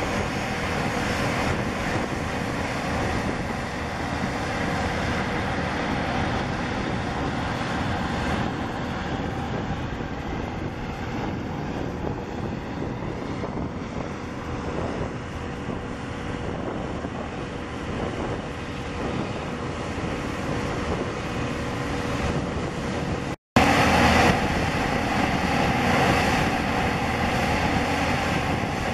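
Boeing 747-400's four jet engines on final approach and through the landing, a steady jet noise with a faint steady hum in it. A brief cut near the end, then a Boeing 777's twin jet engines on approach.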